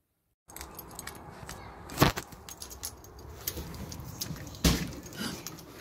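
Rustling and clattering handling noise as someone walks in through a doorway holding a phone, starting about half a second in, with two sharp knocks, one about two seconds in and a second near the end.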